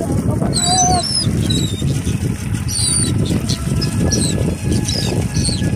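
Seabirds giving short, high-pitched calls again and again, over a steady low rumble.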